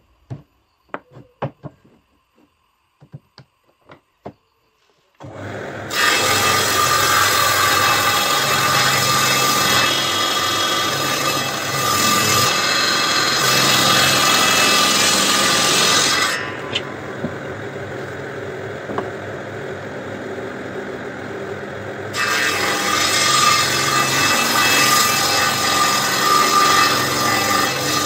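A few light knocks of wood being handled, then the electric motor of a homemade table saw starts and its circular blade rips a board for about ten seconds. The saw then runs on more quietly for several seconds without cutting, and cuts again near the end.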